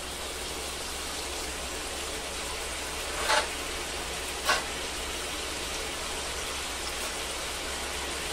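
Sweet potato fries deep-frying in hot oil: a steady sizzle, with two brief louder surges about three and four and a half seconds in. This is the second fry, in reheated oil, to crisp the half-done fries.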